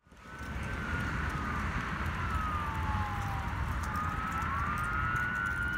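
Fire engine siren wailing, slowly rising and falling in pitch, over a steady low rumble. It fades in over the first half second.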